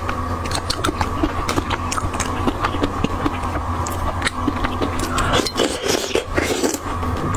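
Close-miked eating sounds of a person biting and chewing pieces of crab in chili sauce: many quick cracks and crunches of shell with wet mouth sounds, thickest about five to six seconds in, over a steady electrical hum.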